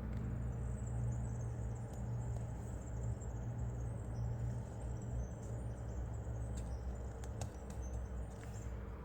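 Steady low hum with faint scattered clicks and rustles of paper and tape being handled.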